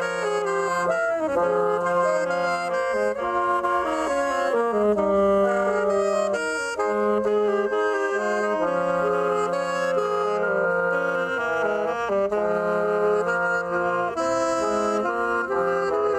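A saxophone trio playing in harmony: three saxophones sound together, the lowest part holding long notes while the upper parts move between pitches.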